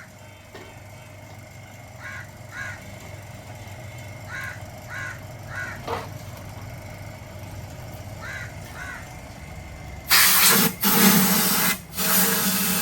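Crows cawing repeatedly, in short pairs and runs of calls, over a steady low hum. Near the end come three loud bursts of rushing noise, a couple of seconds in all.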